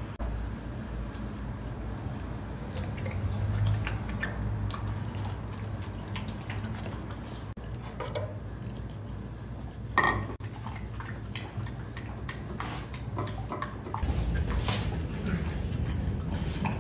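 Light clinks of a metal spoon and a ceramic plate. In the last few seconds an American Bully eats soft, wet food from the plate with wet licking and chewing sounds.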